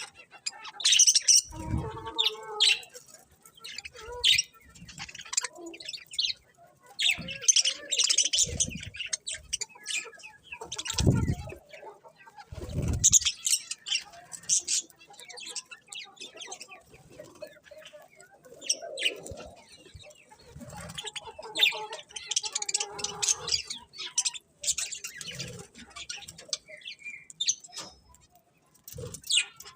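Pet budgerigars chirping and chattering in bursts of quick high chirps that come and go, with a few short low thumps among them.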